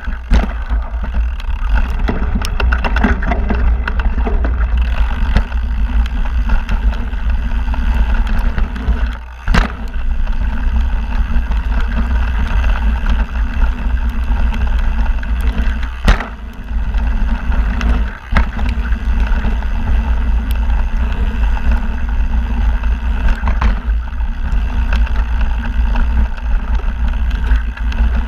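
Mountain bike running down a dirt singletrack: a steady rushing of wind on the microphone and tyres on dirt, with the bike rattling and a few sharp knocks along the way.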